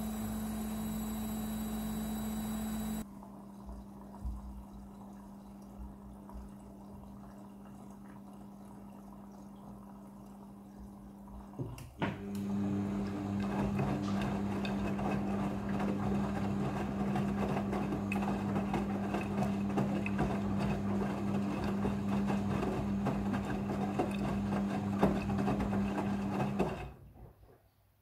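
Midea front-loading washing machine running, its drum motor giving a steady hum. After a click about twelve seconds in, louder rushing water joins the hum, typical of the machine filling. The sound cuts off abruptly near the end.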